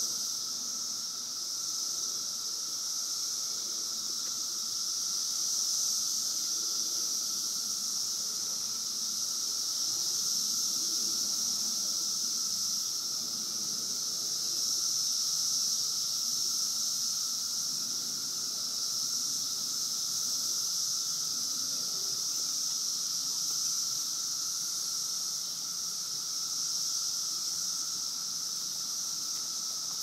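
Dense chorus of 17-year periodical cicadas: a loud, steady high-pitched drone with a fainter, lower-pitched hum beneath it, swelling and easing slightly.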